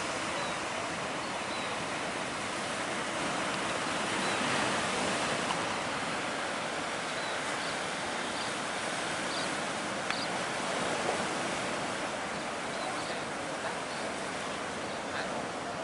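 Sea waves breaking and surf washing in a steady rush, swelling slightly about four to five seconds in.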